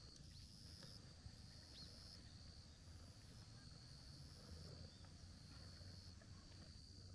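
Near-silent outdoor ambience: insects trilling in long high-pitched stretches that start and stop, over a faint low rumble.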